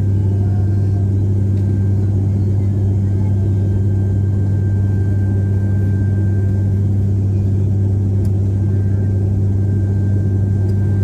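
Small propeller airplane's engine and propeller, heard inside the cabin in flight: a loud, unchanging low drone with a thin steady high tone above it.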